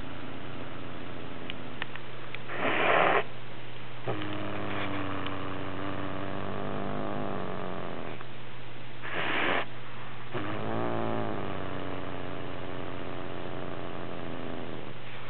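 Domestic cat growling low and drawn-out with prey held in its mouth, the possessive growl of a cat guarding its kill. Two short, loud, noisy huffs break in, about three seconds in and again about nine seconds in.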